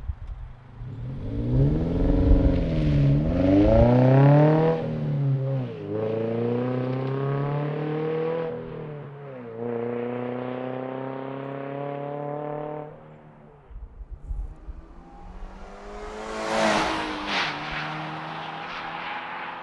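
Toyota GR86's flat-four engine and exhaust being revved, the pitch rising and falling twice, then held at steady revs for several seconds. A brief louder rush of noise comes near the end.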